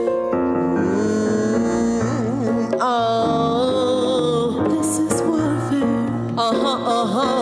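Live acoustic reggae music: a hand drum struck with bare hands under sustained chords, with a woman's voice sliding up and down in wordless runs about three seconds in and again near the end.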